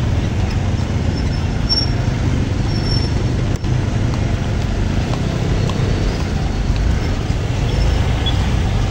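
Steady low rumble of city street traffic heard from a slow-moving motorcycle: motorbike and bus engines close by.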